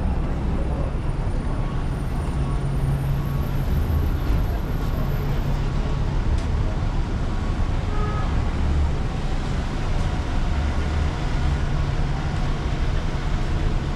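Busy city street traffic: a steady low rumble of engines and tyres from passing vehicles, swelling and easing as they go by.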